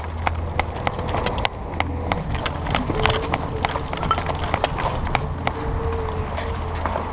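Footsteps at a quick pace, about three a second, with a steady low rumble underneath.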